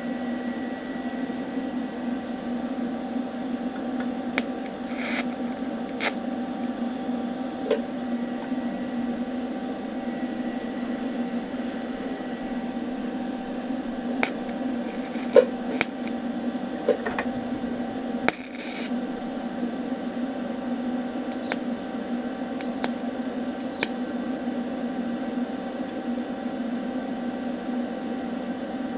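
TIG welding arc on thin 18-gauge mild steel sheet: a steady buzzing hiss, with a few sharp clicks scattered through it.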